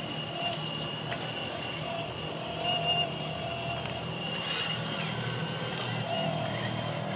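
Remote-control Komatsu PC360 hydraulic excavator model running, its hydraulic pump giving a steady high whine over a low hum as the boom and bucket work, with a few light clicks.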